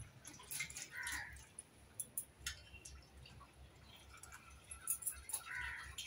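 Quiet handling of cut potato pieces in a steel bowl: scattered light clicks and knocks.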